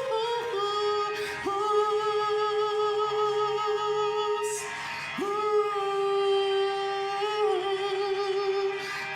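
A woman singing long held notes with vibrato, in three drawn-out phrases broken by short breaths about a second in and near the five-second mark.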